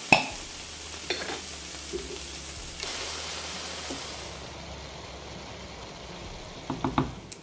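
Pan of diced courgette and aubergine sizzling on high heat in freshly added tomato sauce, a steady frying hiss. There is a sharp click at the very start and a few light knocks near the end.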